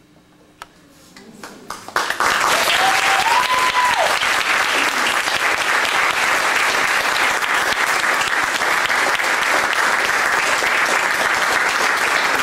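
Audience applause breaking out suddenly about two seconds in and holding loud and steady; a brief whistle rises above it a second or so later.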